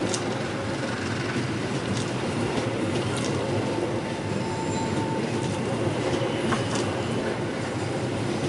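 Executive Class passenger coaches rolling slowly past along the platform, with a steady rumble of wheels on rail. A few sharp clicks and one brief, faint wheel squeal come about halfway through.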